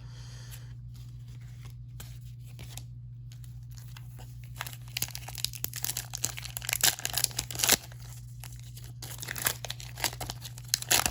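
Foil wrapper of a Pokémon card booster pack crinkling and being torn open, in short, sharp crackly bursts starting about four seconds in.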